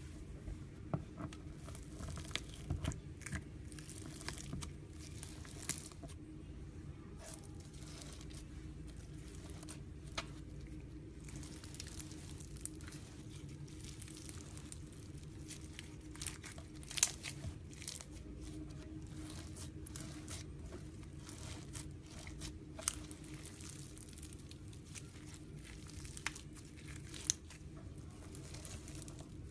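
Slime being worked by hand, giving irregular crinkly crackles and small pops throughout, over a steady low hum.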